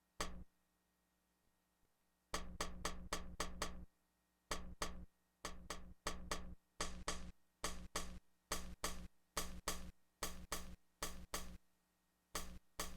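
Drum sample, snare-like, played from an SP1200-style sampler through its TRS output in 'half' mode: about thirty short hits that decay quickly. They come in uneven clusters at first, then at a steady pace of roughly three a second.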